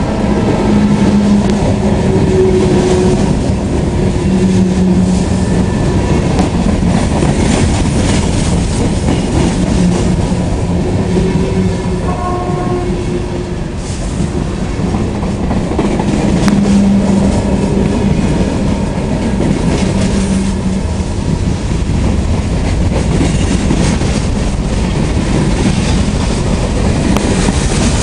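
Empty open-top freight cars of a long train rolling past close by: a steady rumble and clatter of steel wheels on the rails, with low droning tones that come and go.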